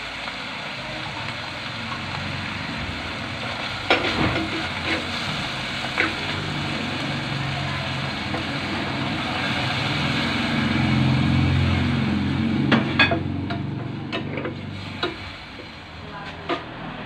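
Sliced mushrooms sizzling in a frying pan, with a wooden spatula knocking and scraping against the pan several times, most often in the second half. Liquid is poured in partway through to make the gravy, and a low steady hum runs underneath.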